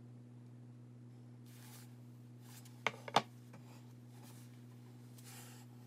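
Quiet room tone with a low steady hum and soft rustling swells. About three seconds in it is broken by a quick cluster of three sharp clicks.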